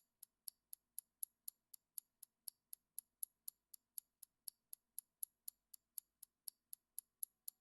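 Quiet clock-style ticking, about four even ticks a second: a countdown timer sound effect marking the answer time.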